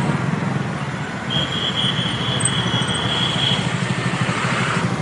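Busy city street noise heard from a moving bicycle in a large group of cyclists, with car and motorbike traffic around. A high steady squeal lasts about two seconds near the middle.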